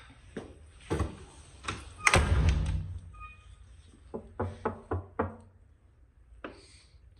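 A door pushed shut with a loud bang about two seconds in. A quick run of about five knocks on it follows, then one more knock near the end.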